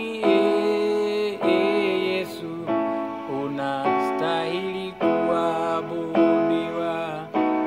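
Electronic arranger keyboard playing sustained worship chords with the right hand, a new chord about every second and a quarter.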